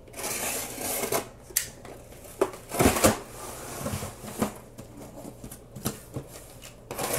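Box cutter slitting the packing tape on a cardboard shipping box, then the cardboard flaps being torn open and the box handled. A scraping stretch comes first, followed by sharp knocks and rustles, the loudest about three seconds in.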